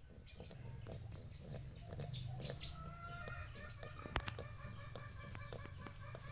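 Chickens clucking in short repeated calls, with scattered short clicks and one sharp knock about four seconds in, over a steady low rumble.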